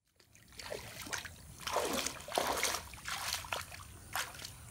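Bare feet wading through shallow muddy water, an uneven run of sloshing splashes with each step, two of them louder about halfway through.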